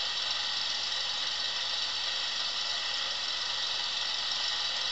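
Recording of a car engine with an exhaust blow, a leak in the exhaust system, making a steady chuffing, played back from a flexi-disc on a small portable record player.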